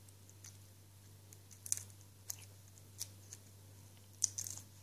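Shell of a cooked shrimp being peeled off by hand: a few faint, short crackles as the shell cracks and tears away, with a small cluster of them near the end.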